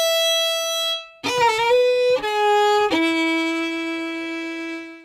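Solo violin playing a short intro phrase. A held note breaks off about a second in, then a few quick notes lead to a long lower note that fades out near the end.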